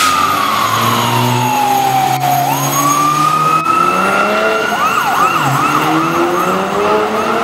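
Fire engine siren on a Calgary Fire Department pumper responding with lights and siren: a wail that falls slowly, rises again, then switches to a fast yelp about five seconds in as the truck pulls away.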